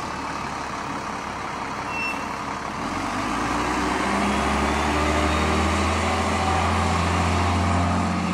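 City transit bus pulling away and accelerating, its engine hum growing louder from about three seconds in.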